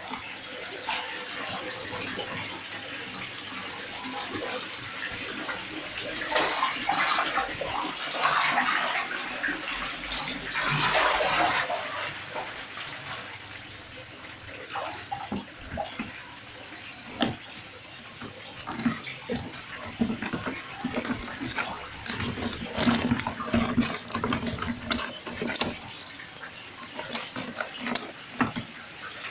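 Water splashing and sloshing, louder in surges, as fish are caught from a tank. It is followed by a long run of short, sharp slaps and knocks from live fish flapping in a bucket.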